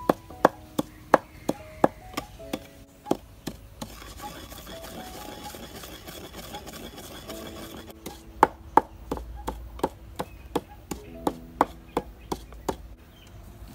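Wooden pestle pounding chili in a clay mortar: sharp knocks at about two to three a second. The knocks pause from about four seconds in and resume at around eight seconds.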